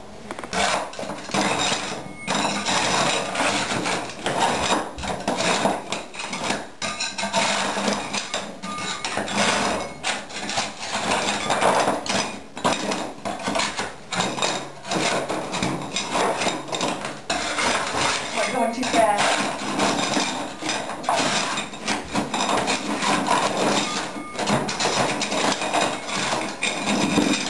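Metal scraper scraping dried thinset off the exposed subfloor, mixed with ceramic hexagon tiles clinking and clattering as they are lifted and set down.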